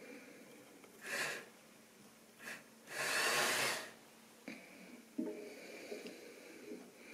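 Three breaths or sniffs close to the microphone: short ones about a second in and halfway through, then a longer exhale of about a second. After them, a faint steady whine with a few light clicks from a model locomotive running on the layout.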